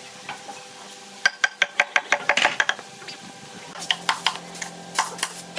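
A steel hammer tapping on wooden boards: a fast run of sharp clinking taps, about seven a second, a little over a second in, then a looser run of taps near the end.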